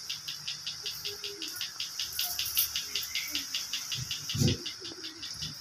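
An insect chirping in an even rhythm of about five pulses a second over a faint steady high hiss, with a brief low thump about four and a half seconds in.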